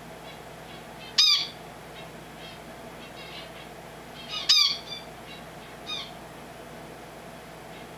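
Pet finch calling: two loud, short calls about a second and four and a half seconds in, with softer short chirps between and after them.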